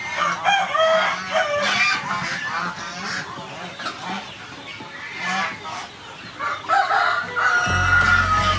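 Chickens clucking and a rooster crowing in a series of wavering calls, with a low hum setting in near the end.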